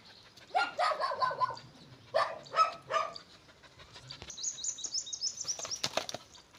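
Small birds chirping in quick repeated series, busiest from about four seconds in, with several short, louder calls in the first three seconds.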